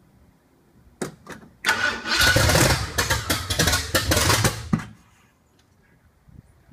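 Freshly swapped-in Ford engine being cranked by its starter: two short bumps about a second in, then about three seconds of loud, pulsing cranking that stops abruptly without the engine staying running.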